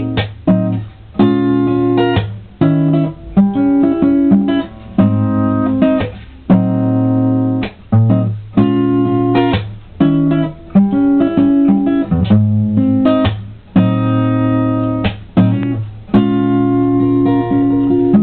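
Acoustic guitar strumming chords in an instrumental outro. Each chord rings briefly, then is cut short for a moment before the next is struck.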